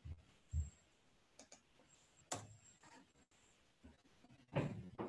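Faint computer mouse clicking and soft low knocks on the desk as a drawing is edited, over quiet room tone: two dull knocks in the first second and one sharp click a little after two seconds. A brief voice sound comes near the end.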